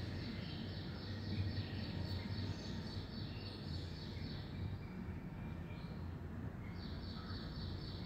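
High, even chirping from a small animal at about three to four chirps a second, in two runs with a pause of about two seconds between them. A low steady hum runs underneath.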